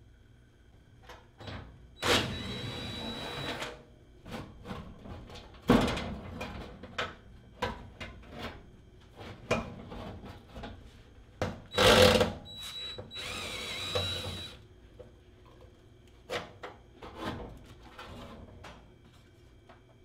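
Cordless drill with an 8 mm nut-driver socket running in two bursts of about a second and a half each, with a high whine, driving out the fasteners of an air handler's blower assembly. Clicks and knocks come between the bursts, the loudest about six seconds in and again about twelve seconds in.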